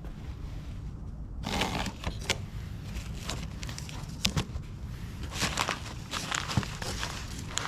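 Irregular clicks, knocks and rustling of parts and tools being handled, starting about a second and a half in, over a low steady rumble.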